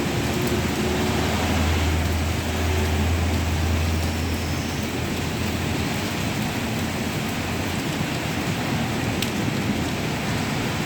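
Heavy rain pouring down steadily, with a low rumble during the first few seconds.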